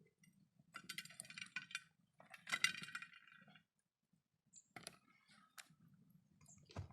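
Metal cookware clinking and rattling: two short bursts of clatter in the first half, then a few single sharp clicks.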